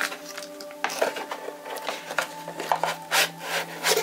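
Cardboard box and its packed contents being handled and emptied: irregular rustling, scraping and light knocks, over a low steady hum.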